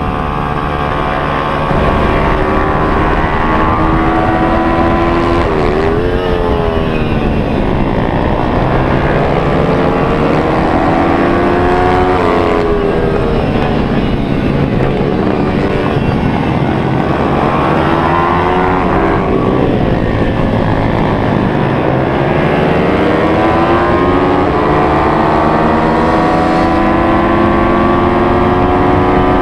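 Air-cooled single-cylinder pit bike engine at racing speed, heard on board. The revs climb and drop over and over as the rider shifts gears and brakes for corners.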